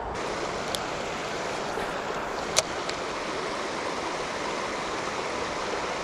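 Small creek flowing, a steady even rush of water, with a couple of short clicks, the sharper one about two and a half seconds in.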